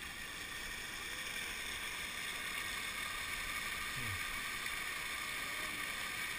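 Steady rushing and splashing of fountain jets falling into their basin.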